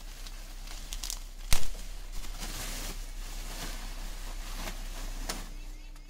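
Rustling and scattered light clicks of things being handled, with one sharp knock about one and a half seconds in.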